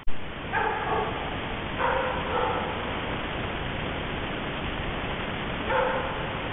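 Short pitched barks from an animal in three bouts, the middle one doubled, over the steady hiss of a trail camera's microphone. A sharp click right at the start.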